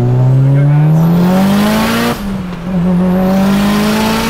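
Mitsubishi Lancer Evolution 8's turbocharged 2.2-litre stroker 4G63 four-cylinder under hard acceleration, heard from inside the cabin. The engine note climbs for about two seconds, drops sharply at an upshift, then climbs again through the next gear.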